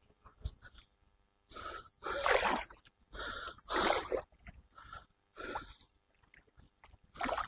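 A man breathing hard as he paddles a kayak, with about six short, breathy gusts at uneven intervals. The loudest come about two and four seconds in.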